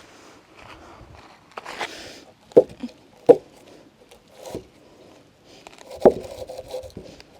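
Solid wood boards being shifted and set down, with a scrape and several sharp hollow wooden knocks as they bump together and onto the work surface.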